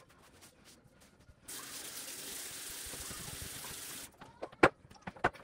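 Bathroom sink faucet running into the basin for a couple of seconds, starting and stopping abruptly, followed by two sharp knocks near the end.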